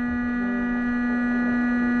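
Steady electrical hum: one strong low tone with several fainter, higher steady tones above it, slowly growing louder.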